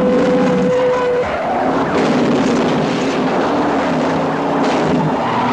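Cars driving fast, with engine and tyre noise, in an action film's soundtrack.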